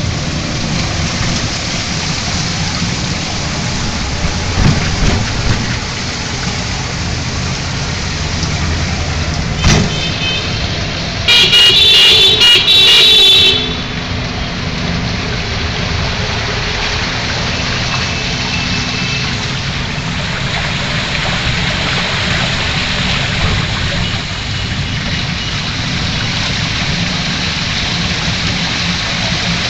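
Heavy rain and spray heard from inside a moving bus, a steady rushing hiss over the bus engine's low rumble. About ten seconds in there is a sharp knock, and soon after a vehicle horn sounds loudly for about two seconds.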